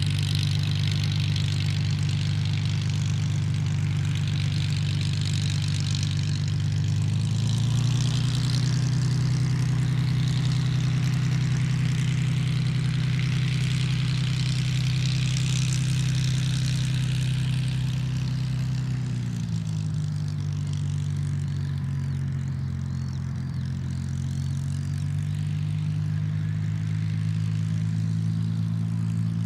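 Propeller-driven warbird's piston engine running steadily at low power. Its pitch steps up about seven seconds in, drops back about nineteen seconds in, and rises again near the end as the throttle is moved.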